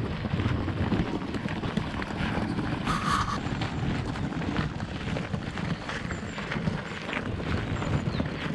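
Footsteps on a garden path with wind buffeting the camera microphone: a steady, uneven rustle.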